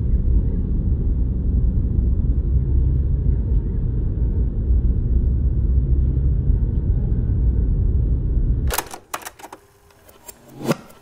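A loud, steady low rumble that cuts off suddenly near the end, followed by a run of sharp clicks. The last few clicks are evenly spaced with a low thud under each, like a beat starting.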